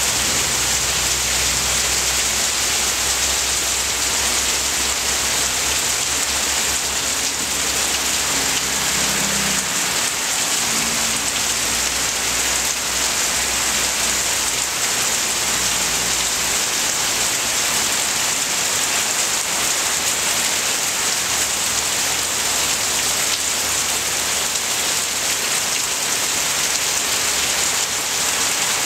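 Heavy downpour of rain falling on leaves and ground, a steady, dense hiss. A faint low rumble sits under it for roughly the first half.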